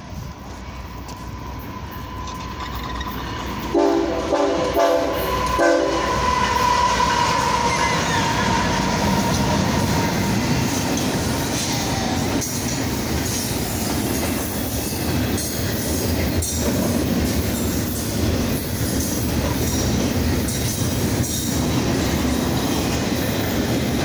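BNSF freight diesel locomotive sounding its horn in short blasts about four seconds in, for about two seconds, as the train approaches. The locomotives and double-stack container cars then run past close by, with loud steady wheel noise on the rails and occasional clicks.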